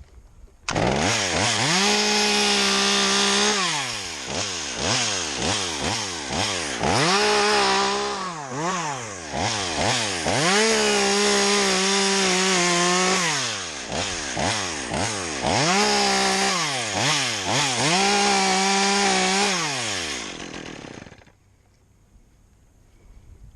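Chainsaw revving hard and cutting a dead birch: it opens up suddenly about a second in, then alternates held full-throttle runs with quick rises and falls in revs, and winds down near the end.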